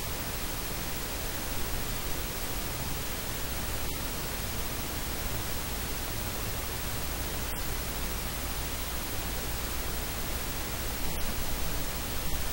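Steady, even static hiss with no speech or other sound in it.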